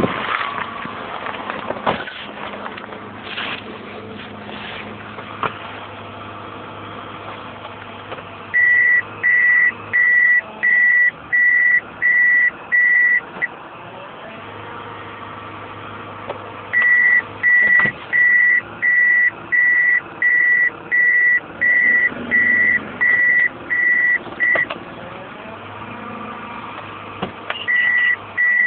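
A car's warning buzzer beeping, one steady high tone repeated a little under twice a second in three runs, over the faint low hum of the Toyota Ipsum's 2AZ engine idling.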